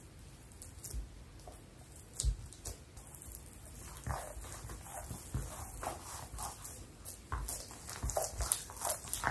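Soft, sticky bread dough being kneaded by hand on a mat: irregular squelches, slaps and pats, with a heavier thud about two seconds in and more frequent squelching in the second half.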